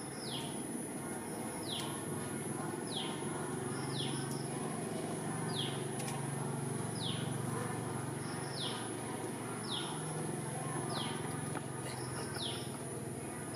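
A bird repeating a short high call that falls in pitch, about once a second, over a steady high-pitched whine.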